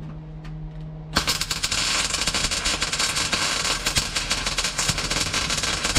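MIG welding torch laying a weld into the steel of a 1958 VW Beetle's floor and crossmember. The arc strikes about a second in and crackles and sizzles steadily for about five seconds. The welder credits the even run to a clean ground and good metal underneath.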